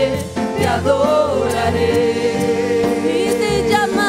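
Gospel worship song sung in Spanish with band accompaniment, between sung lines of the chorus: voices hold and bend notes, with vibrato on held notes near the end, over sustained instrumental chords.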